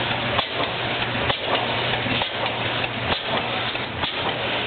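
Large old stationary engine running slowly, with a regular beat a little under once a second over a steady low hum.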